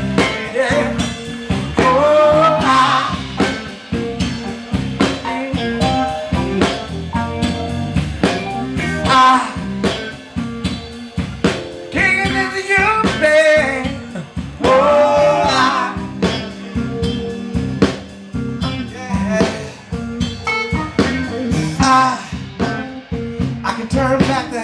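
Live band playing, with drums and electric guitar, and singing over the top.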